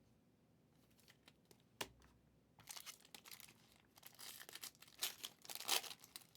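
Foil trading-card pack wrappers crinkling and tearing as packs are opened by hand, with one sharp click about two seconds in; the crinkling comes in irregular bursts and is loudest near the end.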